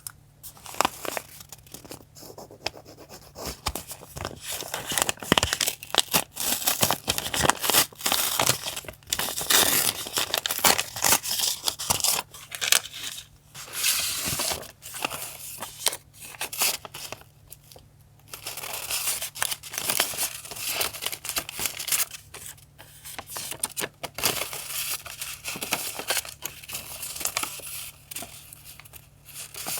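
Close-up paper and packaging being handled: irregular crinkling and tearing with rustles and small clicks.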